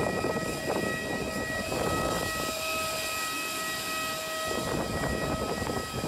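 Parked Airbus A320-200 airliner giving off a steady high whine made of several held pitches.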